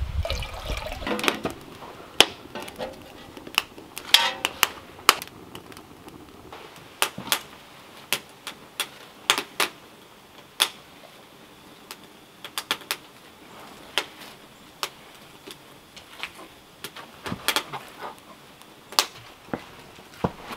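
Water poured into a metal pot for about the first second, then irregular sharp clicks, clinks and knocks of cookware, cooking tools and wood being handled.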